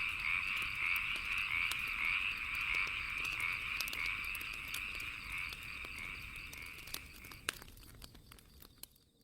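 A chorus of frogs croaking in fast, dense pulses, with the pops and crackles of a bonfire scattered over it. The whole thing fades out: the frog chorus cuts off about seven and a half seconds in, and a few last crackles die away near the end.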